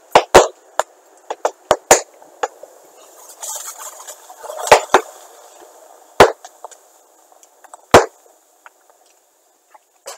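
Capacitors inside an overloaded, burning CRT television bursting with sharp bangs: a quick cluster of pops at first, a hissing stretch about three to five seconds in, then single loud bangs a second or two apart that thin out toward the end.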